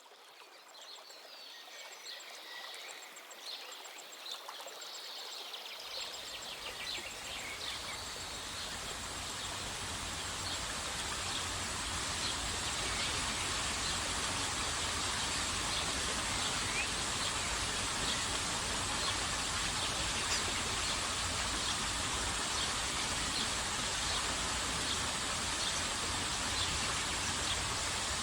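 Waterfall rushing as a steady roar of water, fading in over about the first ten seconds and then holding level. Birds chirp faintly during the first few seconds.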